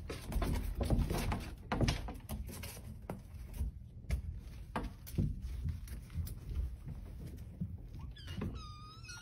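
Soft taps and thumps as a door is opened. Near the end several kittens start mewing, high and overlapping.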